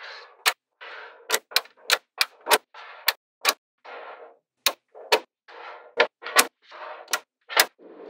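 Small neodymium magnetic balls snapping together in sharp clicks, about fourteen irregular ones, as strips of balls are set against a larger slab. Between the clicks there is a soft shushing as the ball strips slide across the tabletop.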